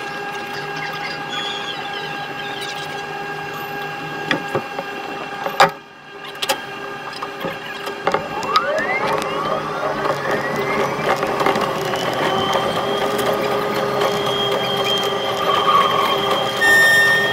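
Keihan electric train heard from the driver's cab at six times speed. A steady hum with several fixed tones while it stands at the platform, and a sharp click about halfway. Then a smoothly rising whine from the traction motors as it pulls away and gathers speed, levelling off high as the running noise grows.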